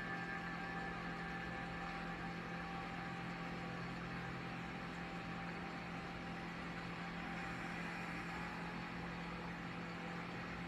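Tibetan singing bowl ringing on after a strike. Its higher overtones fade away over the first couple of seconds, leaving a steady low hum.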